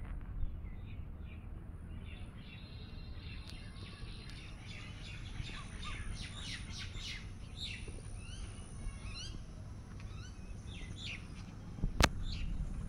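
Many small birds chirping, with short rising calls overlapping in a busy chorus over a steady low background rumble. A single sharp click about twelve seconds in.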